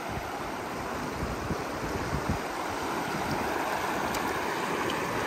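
Shallow river running over stones: a steady rush of flowing water, with occasional low rumbles.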